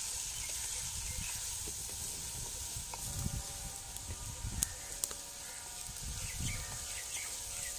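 Chicken frying with spices in a metal pan over a wood fire, sizzling steadily as it is stirred in. A couple of sharp clicks come around the middle.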